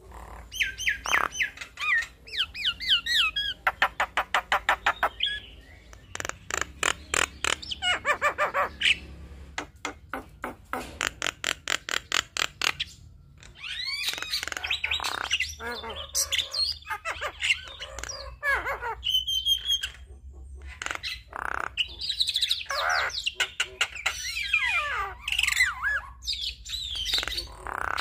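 Javan myna (jalak kebo) singing a long, varied chattering song: rapid trains of clicking notes alternate with squawks and gliding whistled phrases.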